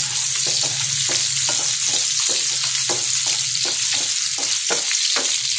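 Chopped capsicum, garlic and green chillies sizzling in hot oil in a non-stick frying pan, with the oil crackling in short pops about three or four times a second over a steady low hum.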